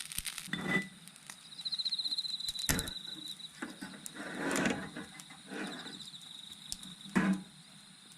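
Insects trilling at a high, steady pitch in pulsing spells, with a few scattered knocks and rustles of handling, the loudest about seven seconds in.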